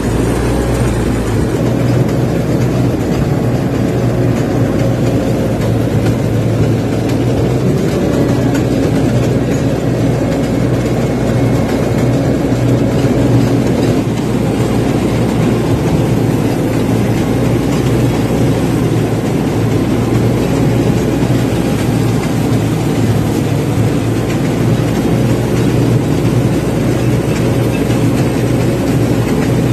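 Kartar 3500 combine harvester running steadily while harvesting rice: a continuous, unchanging drone of engine and threshing machinery, heard from the operator's seat.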